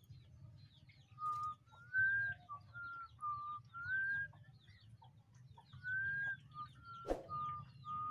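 A series of clear whistled notes at a few different pitches, each about a third of a second long, over constant high twittering chirps of small birds. A single sharp click comes about seven seconds in.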